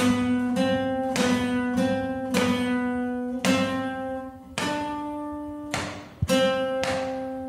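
Steel-string acoustic guitar playing a slow picked single-note melody on frets 4, 5 and 7, a new note plucked about every half second to a second and left ringing.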